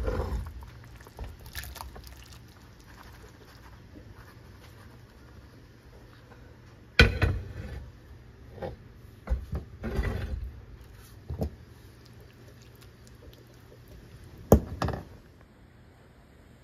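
Cookware being handled while food is served: a few sharp clanks, the loudest about halfway through and near the end, and a run of shorter knocks and scrapes in between, over a low steady hum.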